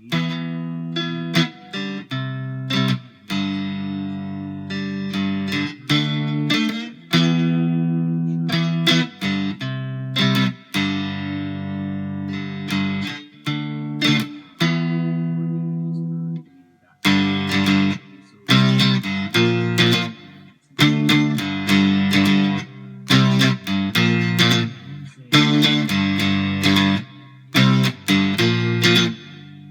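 Homemade electric cigar box guitar played through a Vox VT20X modeling amp: chords struck and left to ring, then from a little past halfway a quicker riff of short, choppy chords.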